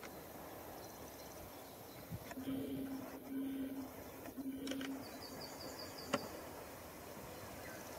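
Horn of a distant EU07 electric locomotive, three short steady blasts at the same pitch, starting about two and a half seconds in. The horn sounds over a background of insects and birds, with a short run of high chirps just after it. One sharp click comes about a second after the last blast.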